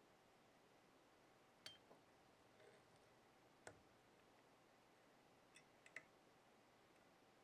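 Near silence, broken by a handful of faint, short clicks as fly-tying thread is worked into a whip finish at the vise, the last few close together about six seconds in.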